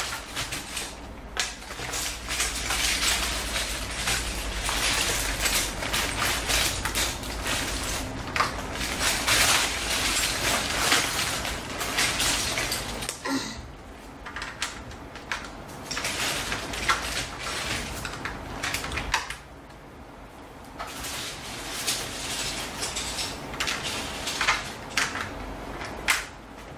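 Small plastic LEGO bricks clattering and rattling as a hand rummages through them in a plastic zip-lock bag, mixed with clicks of bricks being handled. The rattling eases off briefly twice, about halfway through and again about two-thirds of the way through.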